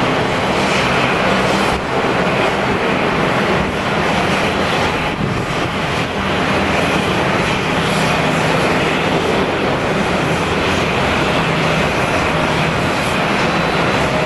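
Jet cargo aircraft's engines running loud and close: a steady, dense rush with a low hum underneath.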